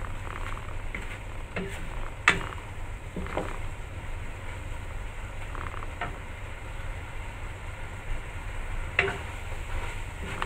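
A wooden spatula stirs long beans through a simmering coconut-milk sauce in a stone-coated pan, knocking against the pan now and then, loudest about two seconds in. A steady low hum runs underneath.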